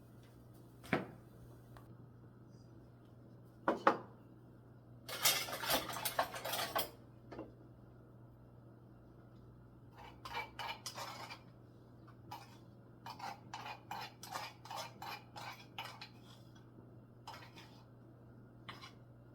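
Kitchen utensils and dishes clinking and knocking: a couple of single clinks, a longer clatter of metal and crockery, then runs of quick light taps.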